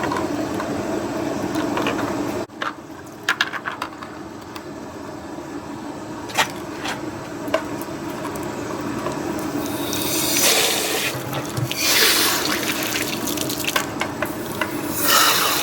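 Water from a tap running and splashing over dishwasher parts being rinsed, with a few sharp knocks. The splashing grows louder about ten seconds in.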